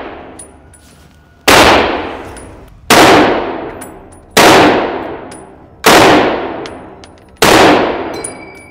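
M1 Garand semi-automatic rifle in .30-06 firing five shots in steady succession, about one every one and a half seconds. Each shot echoes and fades slowly in an indoor range, with light metallic clinks between shots.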